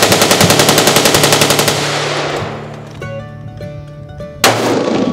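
A rapid string of automatic gunfire over guitar music, fading out about two and a half seconds in, then a single loud gunshot about four and a half seconds in.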